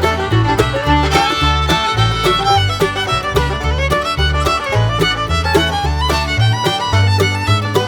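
Upbeat bluegrass-style background music, led by a fast fiddle over a steady bouncing bass beat.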